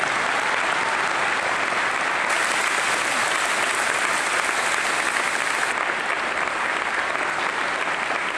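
A large crowd applauding, steady and sustained.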